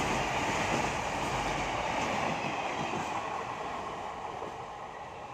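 Container freight train's wagons running past on the track, a steady rolling noise of wheels on rail. It grows gradually quieter over the last couple of seconds as the brake van at the rear passes and the train moves away.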